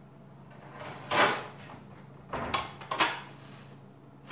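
Kitchen clatter from items handled on a counter: three short knocks and rattles, the loudest about a second in, two more around two and a half and three seconds, over a faint steady hum.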